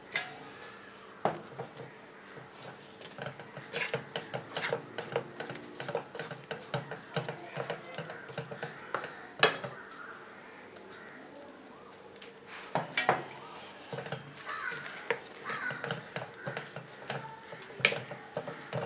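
Kitchenware clattering in a stainless steel pan: a glass bowl knocks against the pan as grated coconut is emptied into jaggery syrup, and a wooden spatula stirs and scrapes the coconut mixture. Irregular clusters of taps and knocks, the sharpest about halfway through.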